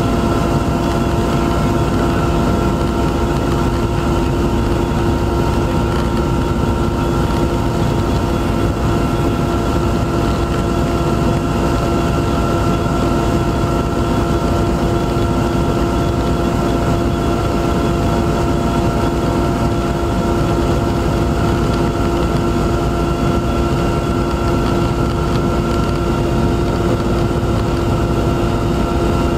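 Aircraft engine noise heard from on board: a steady drone with several constant humming tones over a rumble.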